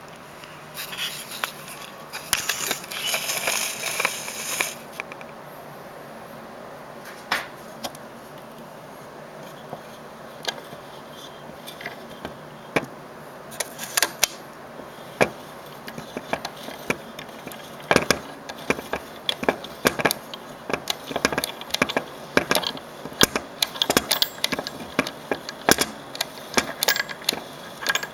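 Handling noise: a rustle for a few seconds, then many irregular clicks, knocks and small rattles, sparse at first and coming thick and fast in the second half.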